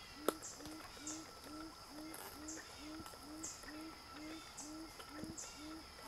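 Forest ambience: a short low note repeated steadily about twice a second, over a steady high insect drone and faint high chirps. One sharp click comes just after the start.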